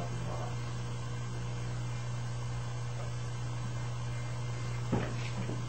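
Steady low hum and hiss of a quiet room, with one short sharp click about five seconds in.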